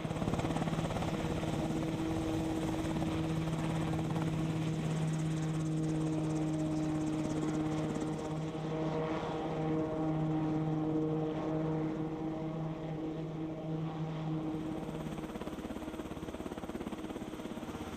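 Piasecki X-49A compound helicopter running: a steady drone with a strong low hum and an overtone above it. The low hum drops away near the end.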